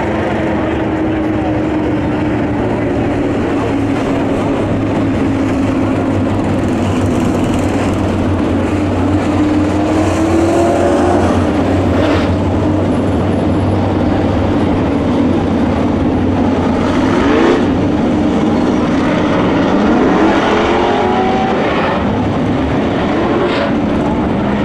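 Dirt-track B-Modified race cars' V8 engines running at low speed under caution, a steady loud drone. Several short revs rise in pitch in the second half.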